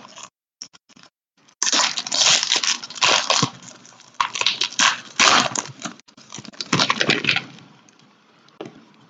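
Plastic packaging of trading cards crinkling and tearing, close up, in a run of loud crackly bursts that starts about a second and a half in and dies away near the end.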